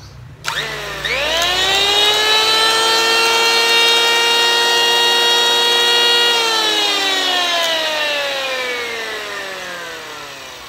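Hitachi 100 V, 1040 W electric hand planer switched on: the motor spins up with a rising whine, runs steadily for a few seconds, then is switched off and winds down with a falling whine.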